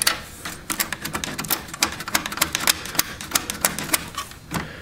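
Rapid, irregular metallic clicks and taps as fingers unscrew a thumbscrew and handle the sheet-metal motherboard tray and cables of an HP ProLiant MicroServer.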